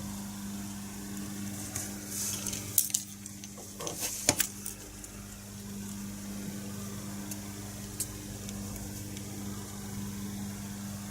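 Small multimeter-kit parts being handled on the bench: a few light clicks and scrapes as a switch wiper contact is tried against the circuit board, bunched together a couple of seconds in, with one more click later. A steady low hum runs underneath.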